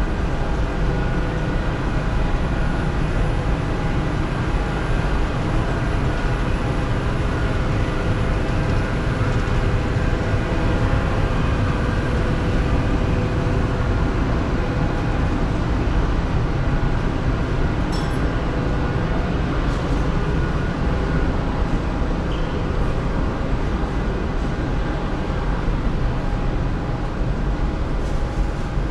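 A steady mechanical drone: a low rumble with several faint humming tones layered over it, unchanging throughout.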